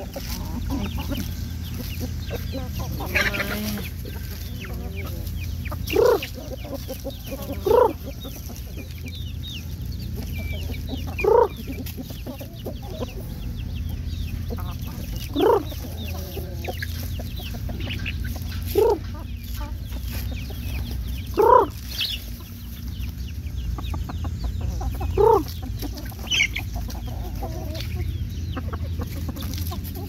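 Chickens clucking while feeding: short single calls every few seconds, over a steady low rumble.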